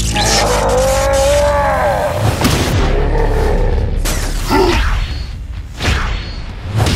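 Cartoon fight sound effects: a drawn-out cry whose pitch rises and falls over the first two seconds, then several sharp impact thuds as a body slams into the ground.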